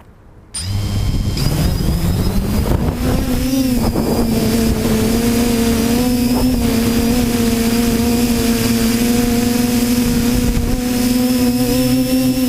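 Quadcopter motors and propellers (TBS Discovery) spinning up about half a second in, the hum rising in pitch, then running at a steady pitch with a constant rush of air noise.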